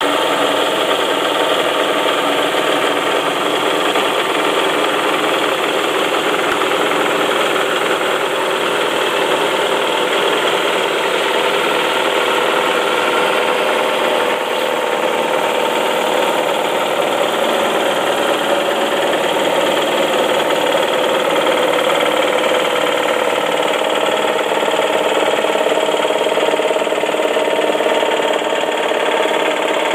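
2004 Saab 9-5 engine idling with a steady knock from the engine compartment. The owner traces it to the oil pan area and suspects a loose rod bearing.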